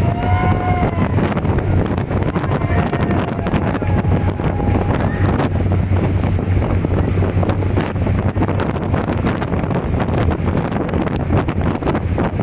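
Wind buffeting the microphone over the steady drone of a motorboat's engine running at speed, with water rushing along the hull and wake. A brief, faint high-pitched shout comes near the start.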